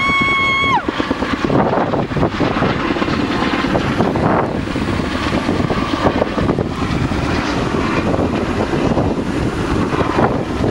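Firefighting helicopter flying over with a water bucket on a long line, its steady rotor and engine noise mixed with wind on the microphone. A brief high, steady tone drops away in the first second.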